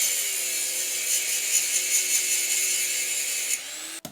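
Angle grinder grinding steel on a motorcycle drive chain: a loud, hissing grind over the steady whine of the motor. Near the end it comes off the metal, the motor's pitch rises, and it stops.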